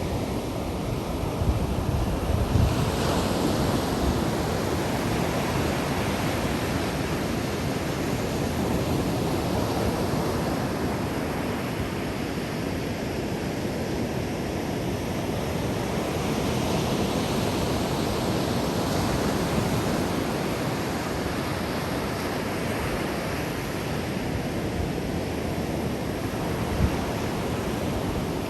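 Ocean surf breaking and washing up a sandy beach, a steady wash of noise that swells and eases as the waves come in, with wind buffeting the microphone now and then.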